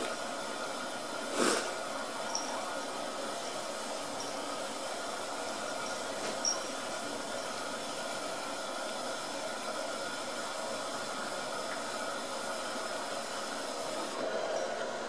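Steady hissing background noise with a faint even hum, like a running fan or household appliance, broken by one short sharp noise about one and a half seconds in and a fainter one a few seconds later.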